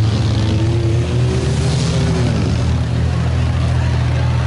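Engines of demolition derby minivans revving and running under load, a steady low drone with pitch that rises and falls as they push against each other.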